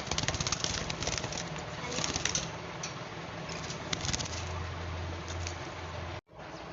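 Fischer's lovebirds chattering in quick, clicky bursts of chirps, several short clusters a second or two apart. The sound drops out for a moment near the end.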